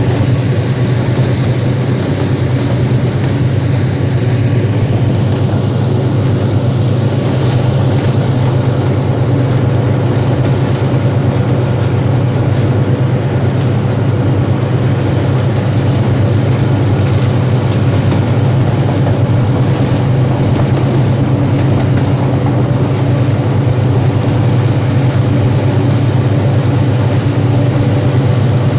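Diesel-electric locomotive engine running steadily under heavy load as the train climbs a steep mountain grade, heard from on board the locomotive. It is a loud, even, deep drone with no change in pitch.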